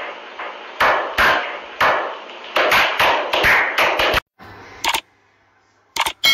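A small group doing a slow clap: single loud claps, spaced apart at first and coming faster, followed by a few sharp click sounds near the end.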